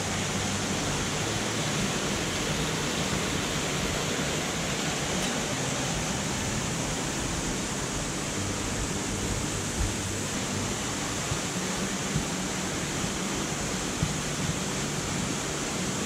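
Steady rush of falling water, an even roar of a waterfall or cascade that does not change in level.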